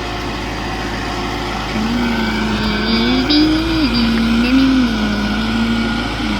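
Kubota tractor engine running steadily. From about two seconds in until near the end, a person hums a few held notes that step up and down over it.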